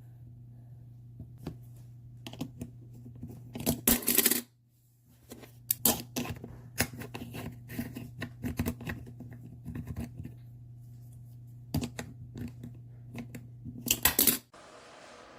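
Clicks, taps and scraping of small hard objects being handled close to the microphone, over a steady low hum. There are two louder bursts of rubbing, about four seconds in and near the end, and the sound drops out briefly after the first one.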